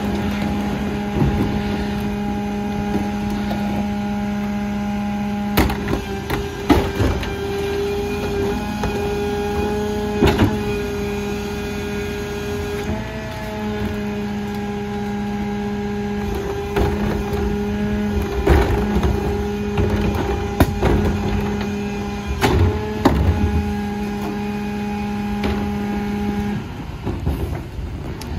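Kenworth/Leach 2RIII rear-loader garbage truck running with a steady hum from its engine and packer hydraulics, while plastic garbage carts knock against the hopper as they are tipped and emptied, several sharp bangs scattered through. The hum stops a couple of seconds before the end.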